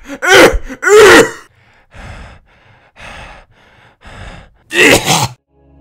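A cartoon character's voice gasping and sighing: two loud vocal sounds sliding in pitch at the start, then four fainter breathy puffs, then another loud sliding vocal sound near the end.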